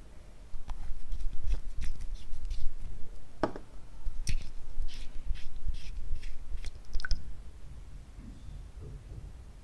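Small plastic makeup containers being handled and opened: a run of light plastic clicks and taps from caps and lids, over a low handling rumble.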